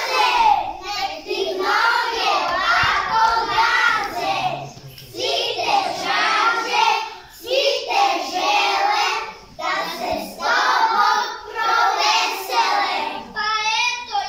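A group of young children singing together in unison, in short phrases with brief breaths between them.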